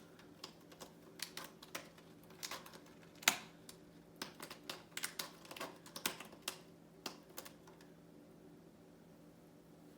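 A cat's claws making irregular scratchy clicks and taps, in quick clusters for about seven seconds, then stopping.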